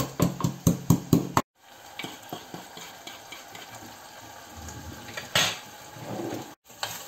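Wooden pestle pounding garlic in a wooden mortar, about three knocks a second, stopping suddenly about a second and a half in. Then cod sizzling gently in oil in a stainless steel saucepan as a wooden spoon stirs it, with small scrapes and one louder clack about five seconds in.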